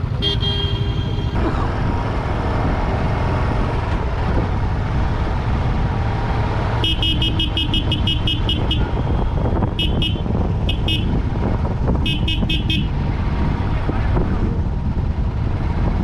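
Vehicle horns honking in slow road traffic over a steady rumble of engines and wind. A short horn blast comes near the start; about seven seconds in, a horn sounds in rapid repeated pips, about six a second, then in two more short runs.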